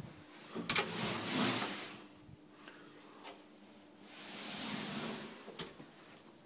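An interior door opened with a click of its latch and a swish as it swings, then swung shut with a second swish and a latch click near the end.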